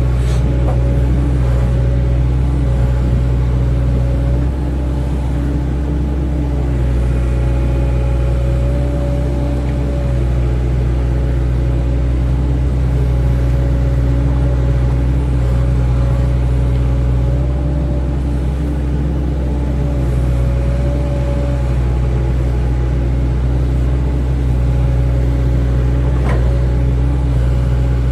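Excavator's diesel engine running steadily with a constant low hum, and a couple of brief clicks or knocks, one near the end.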